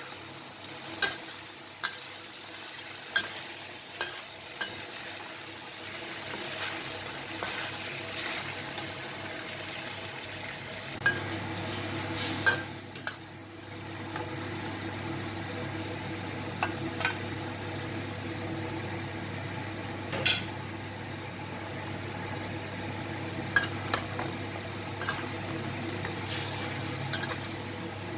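Chicken pieces and curry frying in oil in a wok, sizzling steadily, stirred with a metal spatula that clicks sharply against the pan every few seconds. About eleven seconds in, a steady low hum joins the sizzle.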